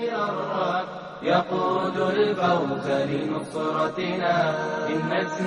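Voices chanting a melodic Arabic Islamic chant (nasheed) in long, held phrases.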